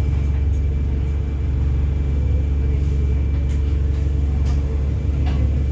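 Wright StreetLite DF single-deck bus heard from inside while on the move: a steady low engine and drivetrain rumble, with a few faint rattles and ticks.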